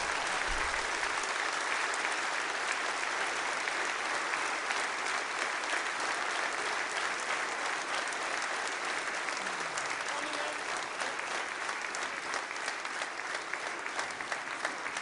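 Concert audience applauding steadily; toward the end the clapping thins and individual claps stand out more.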